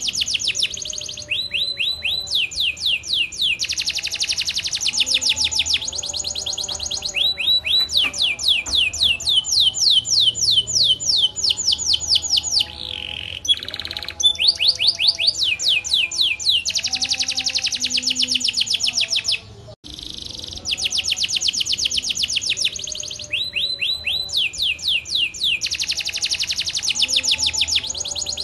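Domestic canary singing a long, continuous song of rolling trills: fast runs of repeated falling notes, switching from one trill to the next every second or two, with a short break about two-thirds of the way through.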